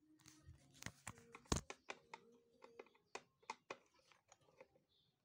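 Irregular light clicks and knocks of hands handling hard objects, the loudest about a second and a half in.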